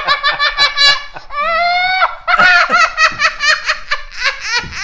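A young girl laughing hard in rapid bursts, with one long high-pitched shriek about a second and a half in, ticklish laughter as a hamster crawls over her back.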